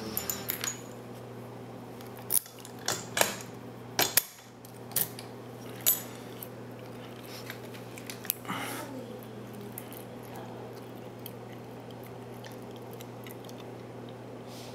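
Small metal clicks and taps of a padlock and lock-picking tools being handled: a burst of sharp clicks in the first six seconds, then faint scattered ticks, over a steady low hum.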